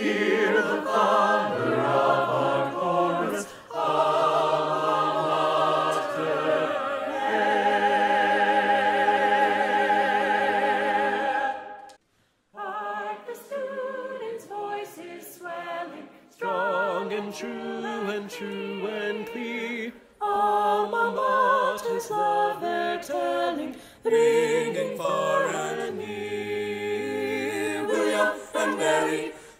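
Choir singing, ending a phrase on a long held chord with wavering vibrato; after a brief break about twelve seconds in, the singing resumes in shorter phrases.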